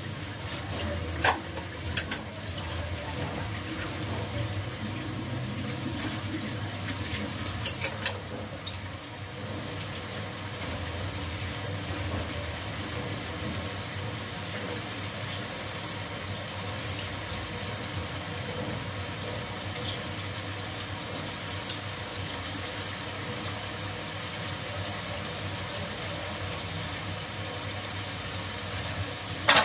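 Steady hiss of masala and meat frying in a pot on a gas stove, with a tap running at the sink. A few sharp clinks of dishes come about a second in and again around eight seconds in.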